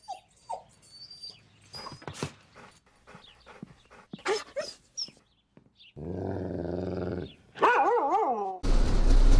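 A dog giving short whimpers and yips, then a steady growl about six seconds in, followed by a wavering, pitched whine. Near the end a loud, steady rushing noise with a low hum takes over.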